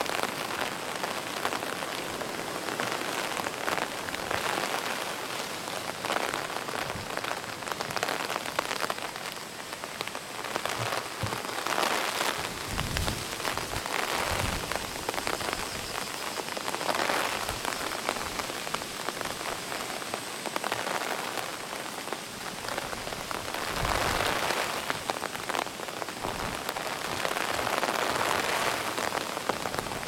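Heavy typhoon rain falling steadily, swelling and easing every few seconds with the gusts, with low rumbles of wind on the microphone now and then.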